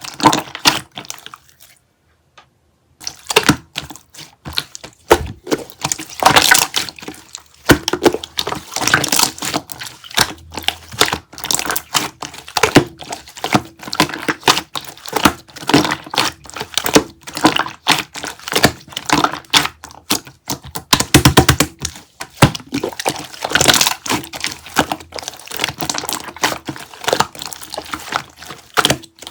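Dense close-up clicking, crackling and tapping, many sharp small impacts in quick irregular succession, with a brief pause about two seconds in.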